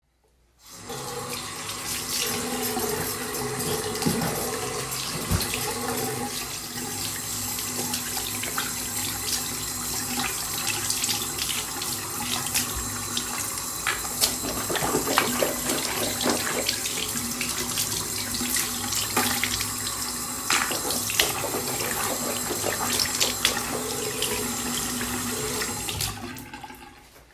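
Water running from a bathroom tap into a sink for washing. It comes on about a second in, runs steadily with scattered splashes, and stops near the end.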